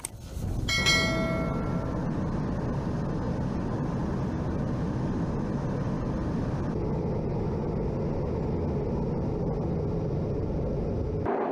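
A single metallic clang that rings briefly about a second in, then the steady engine noise of military jets flying over in formation.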